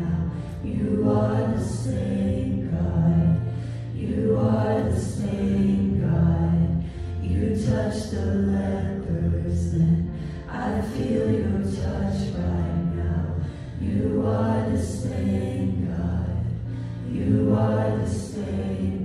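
A small worship team of a man and women singing a contemporary worship song together into microphones, over held low notes of accompaniment.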